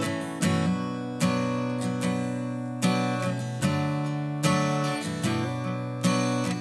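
Background music: an acoustic guitar strumming chords, one strum about every 0.8 seconds at an even pace.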